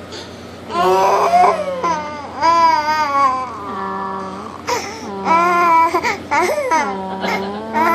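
A toddler crying hard in distress, a string of about five long wails with short catches of breath between them, several sliding down in pitch.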